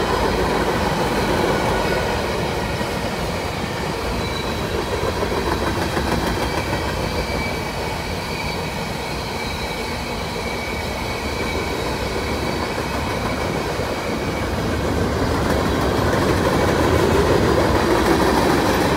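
Freight cars rolling past at steady speed: steel wheels on rail make a continuous rumble, with faint steady high tones above it. The sound swells slightly near the end.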